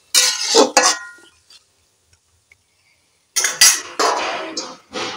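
A metal spatula clattering and scraping against a metal karahi full of chopped water spinach for about a second, with a brief metallic ring. A longer, denser run of sound starts about three and a half seconds in.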